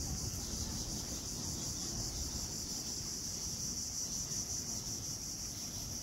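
A chorus of insects: a steady high-pitched buzz, with a low rumble beneath.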